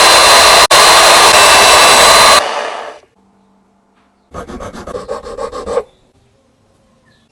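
Electric power tool running loudly with a steady high whine, cut off about two and a half seconds in and winding down. Then about a second and a half of fast rhythmic scraping or rasping, around ten strokes a second.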